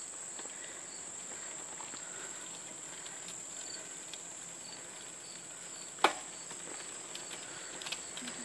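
Insects trilling steadily at a high pitch, with faint chirps repeating a few times a second. One sharp click about six seconds in.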